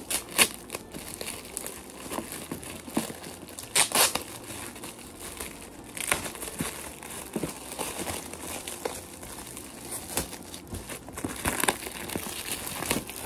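Gift wrapping being crinkled and pulled open by hand, in irregular rustling bursts; the loudest come about half a second and four seconds in.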